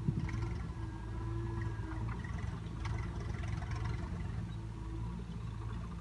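Diesel engines running steadily: a Swaraj 744 FE tractor's three-cylinder diesel pulling a trolley forward, with a JCB backhoe loader's engine running alongside.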